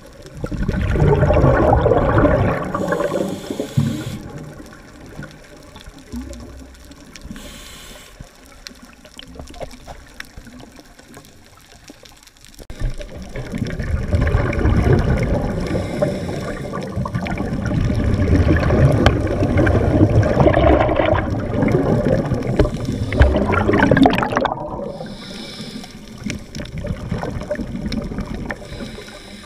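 Underwater scuba breathing: exhaled bubbles from a diver's regulator rush and bubble past the camera, muffled by the water and the housing. There are two loud spells, a short one about a second in and a long one from about twelve seconds that cuts off abruptly, with quieter water noise between.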